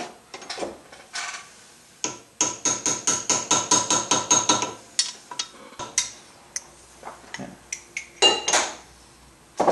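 A quick run of about a dozen light metallic taps, around five a second, each with a short ringing tone: an 11 mm socket being tapped down to seat a new valve stem seal on its guide. Scattered lighter clicks of tools and parts come before and after the run.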